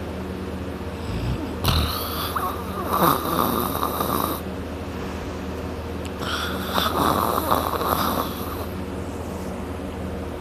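A person snoring loudly in deep sleep on their back: two long snores, the first about two seconds in and the second about four and a half seconds later, over a steady low hum.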